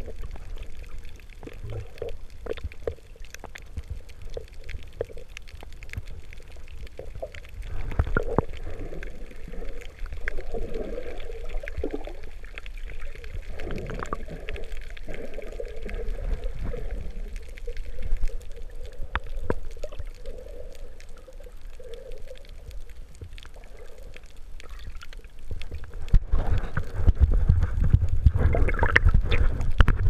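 Underwater sound picked up by a submerged camera: water gurgling and bubbling, with a low rumble and wavering tones. It grows louder and rougher over the last few seconds.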